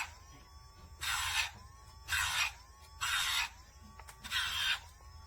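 Casfuy 6-speed electric dog nail grinder on its low setting 2, its drum touched to a dog's nail in short passes about once a second. Each pass gives a gritty grinding rasp, and between passes the motor's whine climbs back up in pitch.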